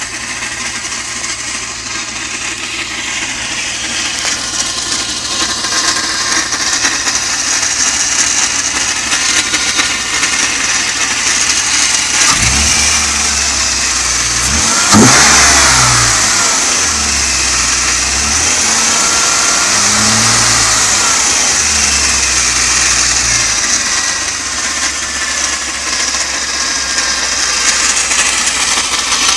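BMW E36 running with a 2.8-litre straight-six from an E39 528i, making a strange noise that the owner has not cured by replacing or checking the mass airflow sensor, idle control valve, crankcase ventilation valve and hoses. About halfway through, the pitch rises and falls once, like a brief rev, with an uneven low drone for several seconds around it.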